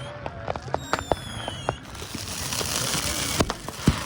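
Handheld consumer fireworks going off close by: a rapid scatter of pops and crackles with a couple of whistles. From about two seconds in comes a steady hissing spray, with more pops over it.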